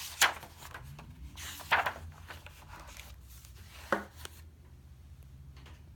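An old hardbound book being handled: a few short rustles and soft knocks, the sharpest about four seconds in, over a steady low hum.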